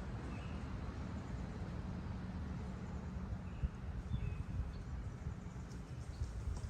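Steady low rumble of wind on the microphone and road noise from a moving electric scooter, with a few faint bird chirps.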